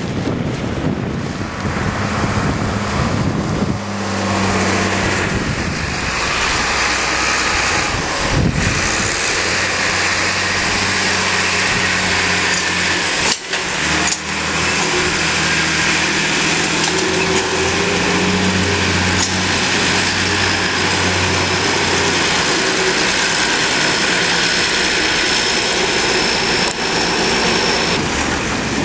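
Farm tractor engines running under load during silage work, with a continuous machinery din. The engine note changes several times, dipping briefly about 13 seconds in.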